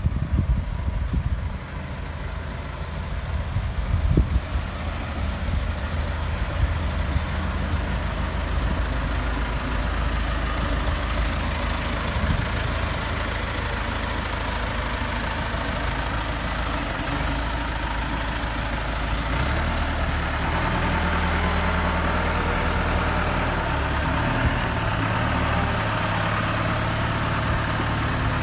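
Genie GTH-644 telehandler's engine running as the machine drives with a pallet load on its forks. About twenty seconds in, the engine note rises to a higher, steadier pitch and gets a little louder.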